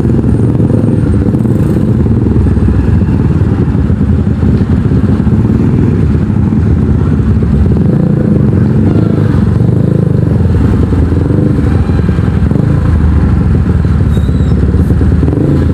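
Kawasaki NS150 motorcycle running through an Akrapovic aftermarket exhaust while being ridden, a steady, loud, low rumble heard from the rider's position.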